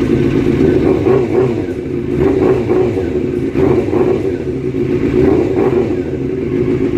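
Suzuki GSX-R600's inline-four engine running steadily after a rebuild, with slight uneven changes in pitch in the middle.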